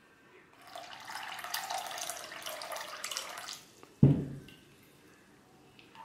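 Cold water running and splashing through a mesh sieve as cooked sago pearls are rinsed and stirred, for about three seconds. Then a single loud low thump about four seconds in.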